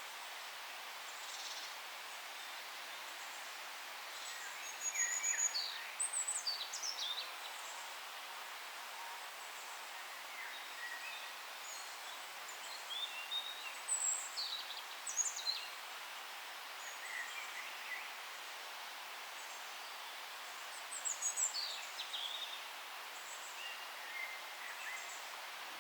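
Several songbirds singing in short bursts of high chirps and whistles over a steady forest hiss, with the busiest phrases about five, thirteen and twenty-one seconds in.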